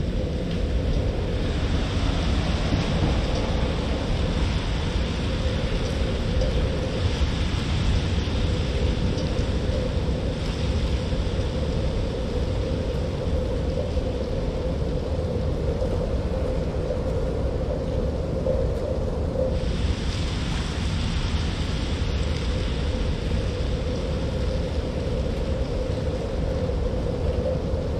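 Steady rain on a city street: an even hiss over a constant low rumble, with a steady hum underneath. The hiss grows stronger about two-thirds of the way through.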